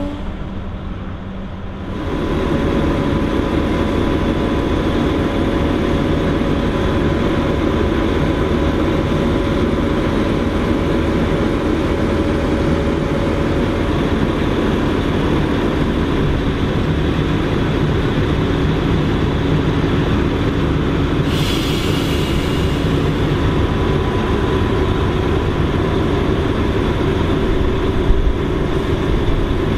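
John Deere self-propelled forage harvester chopping standing maize. The big diesel engine runs under load with a steady whine from the chopping drum over the rush of the crop going through. A brief hiss comes a little after two-thirds of the way through.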